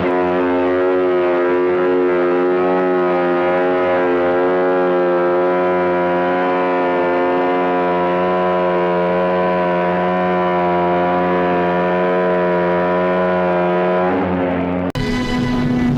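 Ship's horn sounding one long, steady, deep blast, rich in overtones with a slight waver in pitch. It cuts off suddenly about a second before the end, and a different steady tone with noise takes over.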